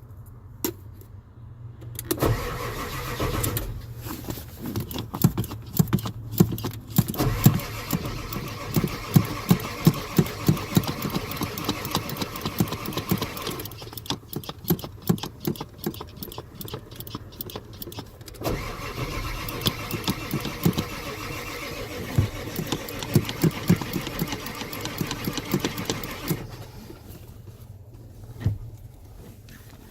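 Ford diesel engine being cranked over by its starter without catching, the rhythmic churn of the compression strokes running in two long attempts with a short break between them: a no-start.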